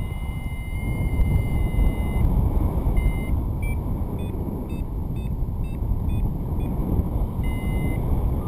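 Wind buffeting the microphone in a steady loud rush, with a paragliding variometer sounding over it: a held electronic tone that steps in pitch for about two seconds, then short beeps about twice a second, then a held tone again near the end.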